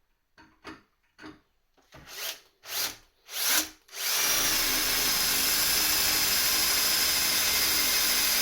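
Electric drill with a 4.5 mm bit, drilling through an aluminium pedal rivet: a few short squeezes of the trigger, each a brief spin that grows louder, then about four seconds in it runs steadily.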